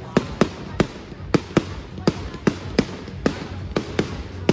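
Fireworks going off: a rapid run of sharp bangs, about two or three a second.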